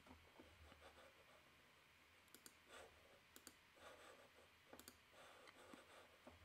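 Near silence: room tone with a few faint, scattered clicks from working a computer's mouse and keyboard.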